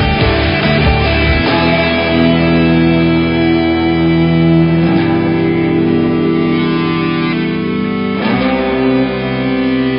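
Background music: guitar-led instrumental track with sustained chords that change every few seconds.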